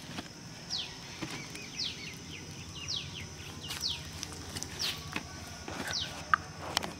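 A bird calling over and over, each call a short high note sliding steeply downward, about once a second, with softer chirps in between. A couple of sharp clicks come near the end.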